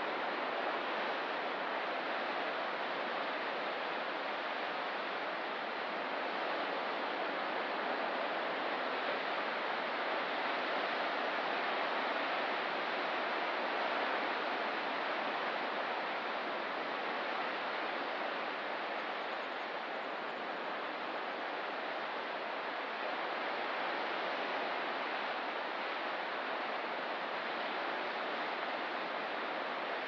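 Ocean surf: a steady, even wash of waves with no single breaker standing out.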